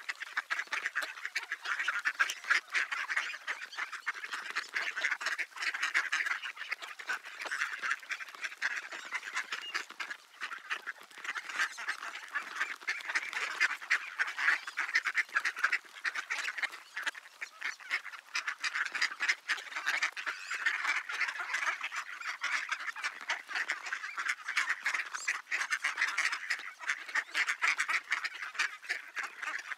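Ducks calling, a continuous chatter of calls mixed with a dense patter of small ticks.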